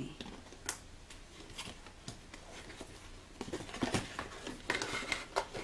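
A camera's retail packaging, a cardboard sleeve over a clear plastic case, handled and turned in the hands: scattered light clicks and scrapes of plastic and card, growing busier about halfway through.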